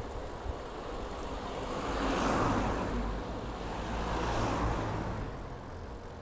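Passing road traffic: a rushing noise that swells and fades twice, about two and four seconds in, over a steady low rumble.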